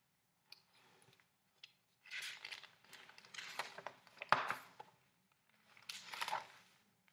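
Pages of a picture book being turned by hand: a few faint clicks, then several bursts of paper rustling and flapping, the loudest about four seconds in.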